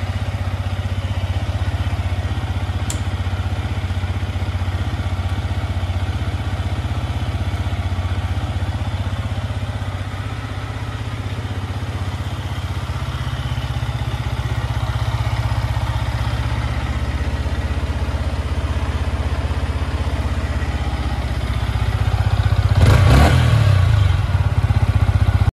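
Yamaha MT-125's 125 cc single-cylinder four-stroke engine idling steadily. It grows louder near the end, with a short rough burst of sound.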